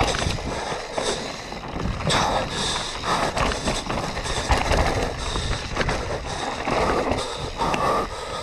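Downhill mountain bike running fast over a dirt forest trail: wind buffeting the onboard camera's microphone, with tyres on loose dirt and the bike rattling over bumps as a run of short clicks and knocks.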